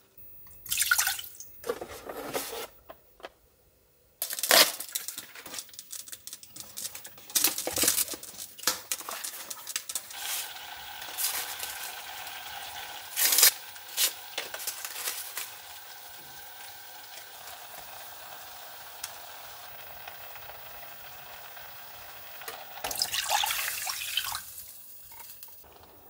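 Making milk tea in a small pot on the stove: tea-bag sachets torn open and crinkled, then water simmering with a steady hiss. Near the end, milk is poured into the pot.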